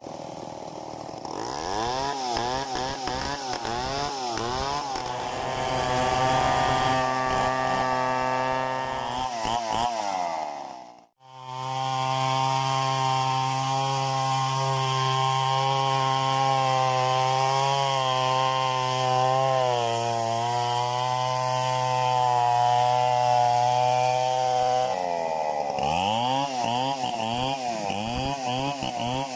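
Stihl 070 two-stroke chainsaw revving up and down, then held at steady full throttle while cutting mahogany. It cuts out for a moment about eleven seconds in, comes back at steady high revs, and goes back to revving up and down near the end.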